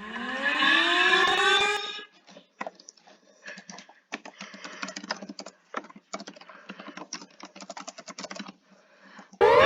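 Computer keyboard typing: irregular clicking keystrokes for about seven seconds. It follows a short electronic tone gliding upward, and a loud alarm of repeated rising sweeps cuts in near the end.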